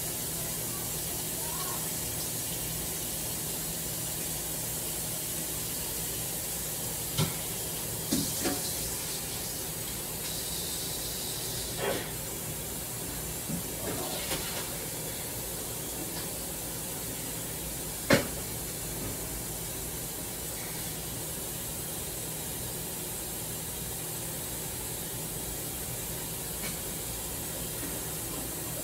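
Steady hiss, with a few scattered knocks and clatters of cookware; the sharpest knock comes about two-thirds of the way through.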